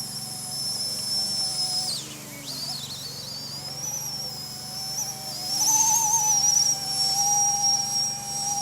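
RC Era C123 electric RC helicopter's motor and rotor whine, a high steady tone, while it flies fast in its high speed mode. The pitch dips sharply about two seconds in and swells back louder around six seconds as the throttle changes.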